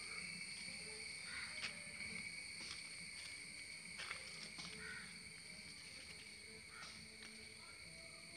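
Insects keeping up a steady high-pitched drone, with scattered clicks and rustles of leaves being brushed and handled.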